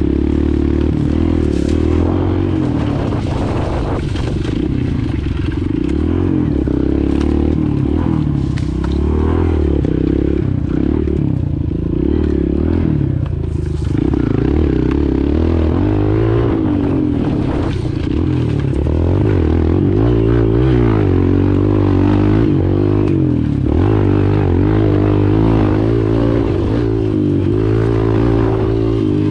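Small Kawasaki KLX dirt bike's single-cylinder four-stroke engine being ridden hard, its pitch constantly rising and falling as the throttle is opened and backed off.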